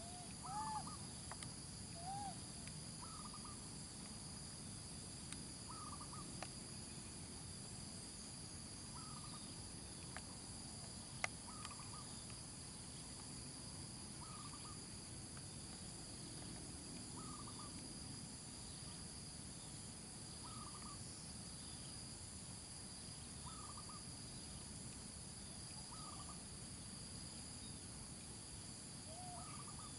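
Steady, faint high-pitched insect chorus, with a short call repeating about every three seconds. A few rising squeaks come in the first two seconds and again near the end, and there is a single sharp click about eleven seconds in.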